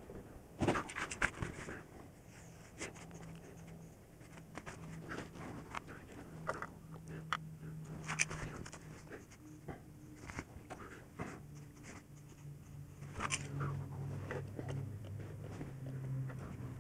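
Scattered small clicks and scrapes of a hand-held metal caliper being handled and set against a bumper-mounted outlet while taking measurements. A faint low hum comes and goes underneath.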